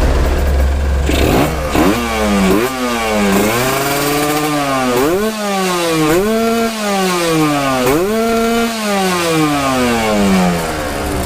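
Two-stroke motorcycle engine being revved repeatedly on the stand during tuning. It gives about six throttle blips, each rising quickly and then dying away slowly.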